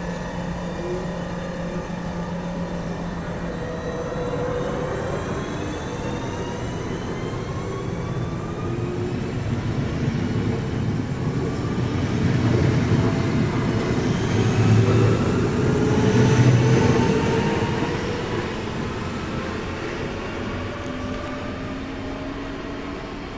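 Class 1440 Alstom Coradia Continental electric multiple unit pulling away along the platform. Its traction motors whine in several tones that glide upward in pitch as it gathers speed. A wheel-on-rail rumble grows loudest a little past halfway, then fades.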